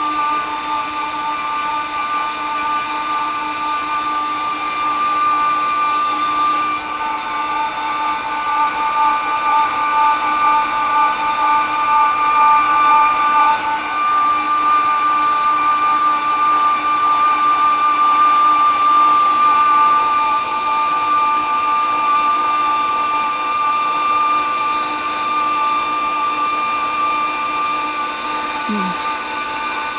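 KitchenAid stand mixer motor running at speed 6, driving the pasta extruder's auger as it pushes dough through a small-macaroni die: a loud, steady mechanical whine.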